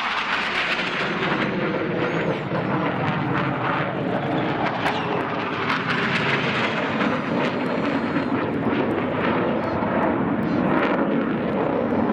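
Jet noise from RAF Hawk T2 trainers' Rolls-Royce Adour turbofans as the aircraft fly by, a loud steady rushing sound whose pitch shifts slowly.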